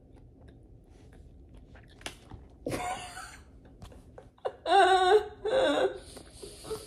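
Quiet chewing while eating cake, then short wordless vocal sounds from a woman: a breathy burst about three seconds in and longer voiced sounds about five seconds in.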